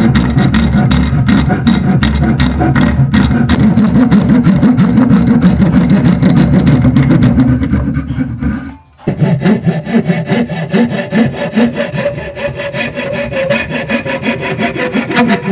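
Hand saw cutting through a wooden block in steady, rhythmic back-and-forth strokes. The sawing stops briefly about nine seconds in, then resumes with a brighter, higher rasp.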